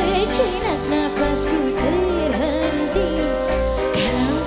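Live dangdut band music with a woman singing the melody, her voice bending and wavering over the band.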